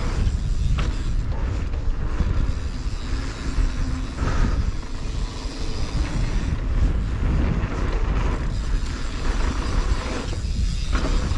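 Mountain bike riding down a dirt trail: heavy wind rumble on the camera microphone over the rolling and rattling noise of tyres and bike.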